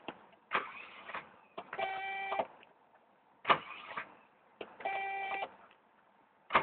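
A Mercedes that will not start, tried twice with the key: each try gives a click and then a short steady electrical whine of about two-thirds of a second, and the engine never catches.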